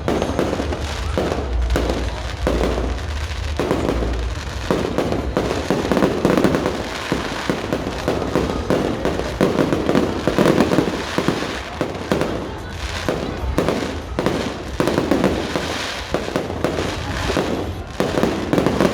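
Fireworks going off in a dense, continuous barrage of rapid bangs and crackling, with louder clusters of bursts now and then.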